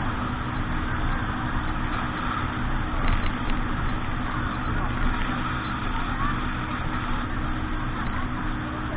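Motorboat engine running steadily at a constant speed, with an even rushing noise over it.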